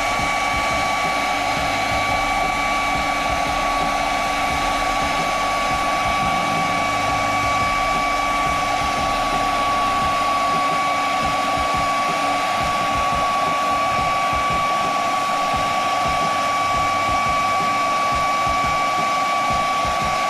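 Rowenta hair dryer running steadily at maximum speed: a rush of air with a steady whine from the motor.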